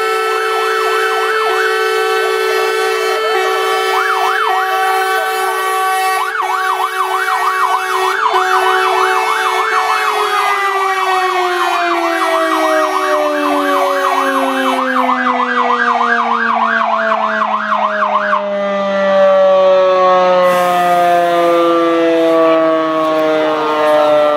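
Fire engine sirens sounding together: a rapid yelping warble over a steady siren wail. The wail starts sliding slowly down in pitch about ten seconds in and keeps falling. The rapid warble stops a little after eighteen seconds in.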